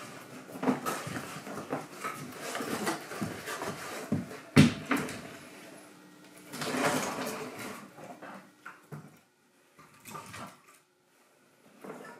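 Split firewood logs knocking and clattering as they are handled and stacked into flexible plastic tub baskets, with one sharp wooden knock about four and a half seconds in. The knocking thins out to a few scattered clicks with quiet gaps near the end.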